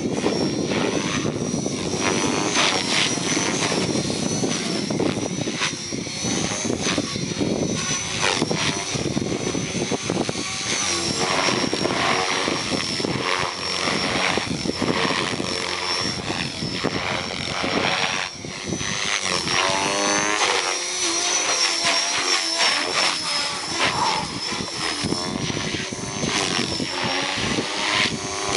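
Align T-Rex 470LM electric RC helicopter flying 3D aerobatics: a high motor whine that wavers in pitch with load, over the whoosh of the rotor blades, with sweeps rising and falling as it manoeuvres.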